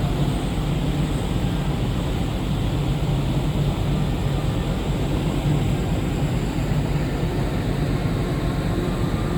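Steady low drone of a ferry's engines under a rushing noise, cutting in suddenly.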